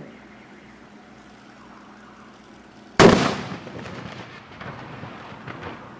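A single sharp explosion about three seconds in: an illegal M-1000 explosive device detonating in a watermelon, the blast echoing and dying away over about a second.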